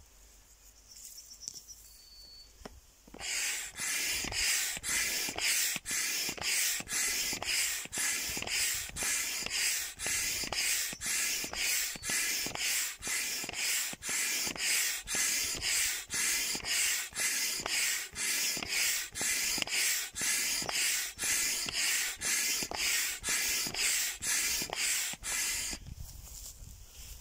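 Hand pump pushing air through a hose into a large vinyl inflatable duck: rhythmic whooshing strokes, about two a second, starting about three seconds in and stopping shortly before the end.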